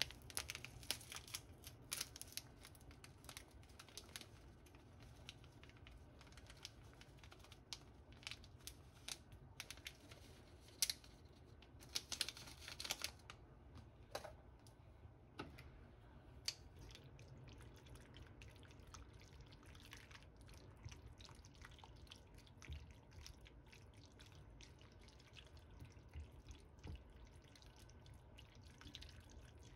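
Quiet food-handling sounds: a plastic seasoning-powder sachet crinkling and being torn open, the powder shaken out over sauced flat glass noodles, and near the end tongs stirring the noodles, with many small clicks and rustles.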